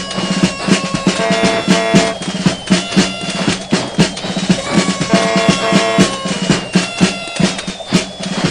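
Music with a steady, rhythmic drum beat and pitched instrument lines over it.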